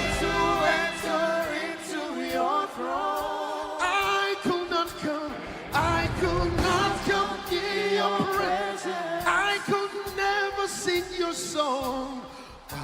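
Live gospel worship singing with instrumental accompaniment: sung voices moving over steady held chords.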